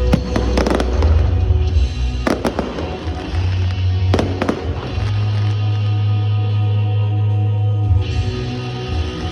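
Aerial fireworks going off, with sharp bangs and crackle in clusters near the start, about two seconds in and about four seconds in, over deep booms and music playing throughout.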